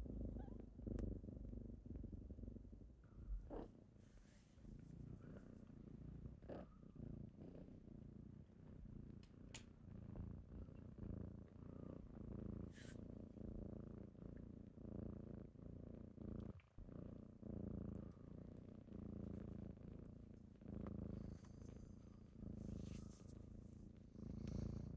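Kittens purring, a continuous low rumble that swells and eases about once a second, with a few faint sharp ticks scattered through it.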